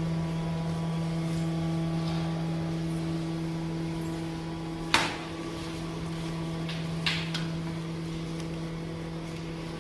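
Steady machine hum, with one sharp knock about five seconds in and two lighter clicks about two seconds later.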